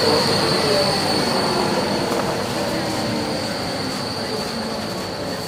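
Cobra low-floor tram passing close and pulling away, its running noise and a steady high-pitched wheel squeal slowly fading.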